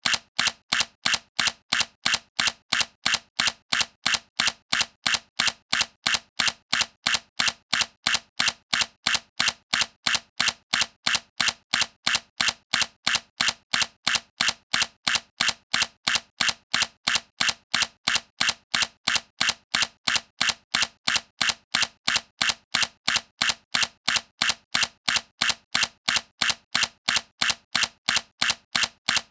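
Sony A7C mirrorless camera shutter firing over and over in an even rhythm, about three sharp clicks a second.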